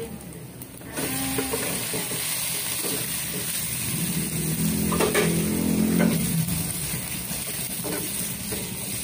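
Hot oil sizzling in a stainless-steel wok, jumping up about a second in as blanched chicken feet go into the browned garlic and onion. A wooden spatula stirs and scrapes the pan throughout.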